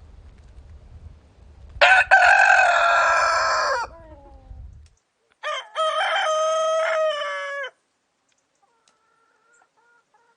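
Domestic rooster crowing twice: a first cock-a-doodle-doo about two seconds in, lasting about two seconds and trailing off in falling notes, then a second, cleaner crow about five and a half seconds in, also about two seconds long. A low rumble lies under the first crow and stops after it.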